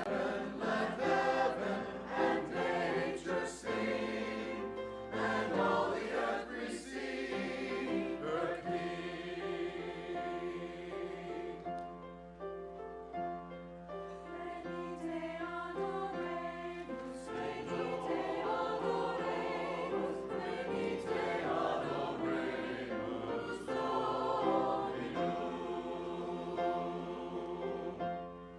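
Choir singing, with the sound dropping away near the end.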